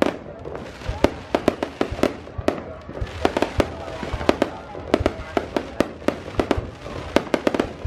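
Aerial fireworks bursting in rapid, irregular clusters of sharp bangs, dozens of them, some in quick runs of several at once.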